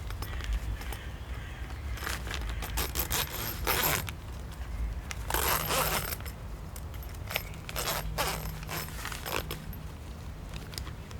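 A zipper being pulled open and shut in two long rasping strokes, then several short quick ones, over a steady low hum.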